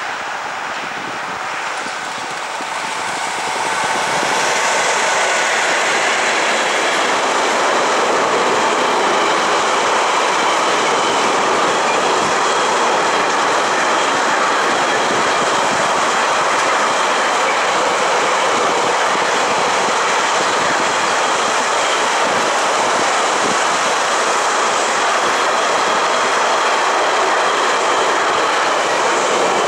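Diesel-hauled freight train of empty double-deck car-carrier wagons passing close by. The sound swells over the first few seconds as the locomotive comes level, then settles into a steady rolling rumble and clatter of wagon wheels on the rails.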